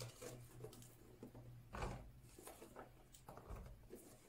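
Faint soft knocks and pattering as blueberries are tipped into a plastic box on a kitchen scale, the clearest knock about two seconds in, over a low steady hum.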